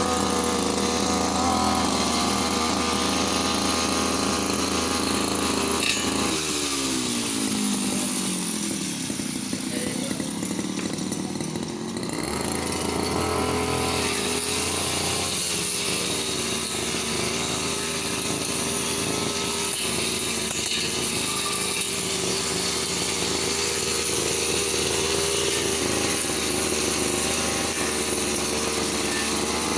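Brush cutter's small engine running steadily; about six seconds in the throttle eases and the engine note falls in pitch, then it runs on steadily.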